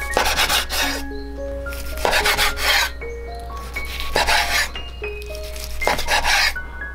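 Chef's knife slicing through a cooked beef steak onto a wooden cutting board: four rasping strokes, about two seconds apart.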